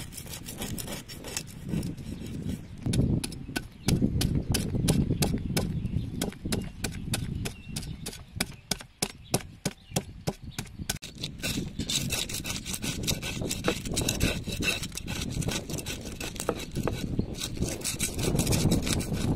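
Steel cleaver scraping the scales off a large fish on a wooden chopping board: rapid, repeated scraping strokes.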